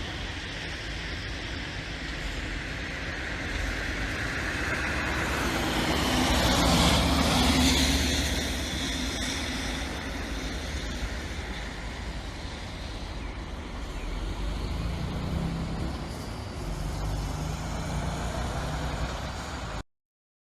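A heavy vehicle passes, its noise swelling to a peak about seven seconds in and then settling back to a steady background rumble. The sound cuts off abruptly near the end.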